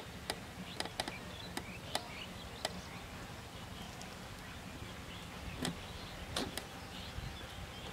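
Scattered light, sharp clicks from a fishing rod and reel being handled, several in the first three seconds and a few more about two thirds through, over a faint outdoor background.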